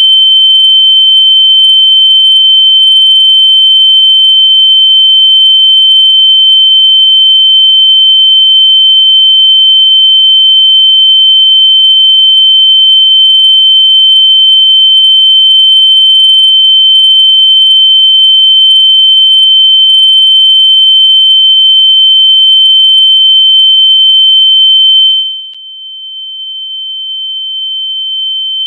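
Continuous, very loud, high-pitched electronic tone held at one steady pitch. Near the end it drops sharply in volume, then slowly swells back up.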